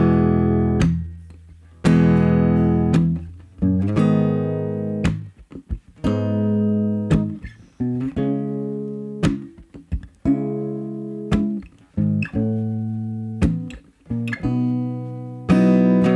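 Small-bodied acoustic guitar playing an instrumental intro: chords struck roughly once a second, each left to ring and die away before the next.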